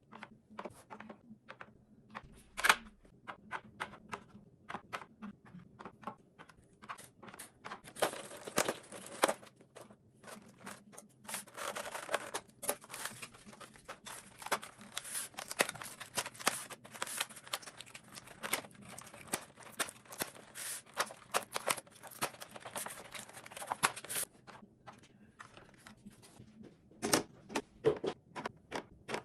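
Packaging and containers being handled while a fridge is restocked: many sharp clicks and taps, with a long stretch of denser rustling and crinkling in the middle.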